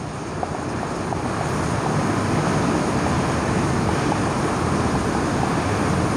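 Steady rushing background noise that swells over the first two seconds and then holds, with a few faint ticks of a marker writing on a whiteboard in the first second or so.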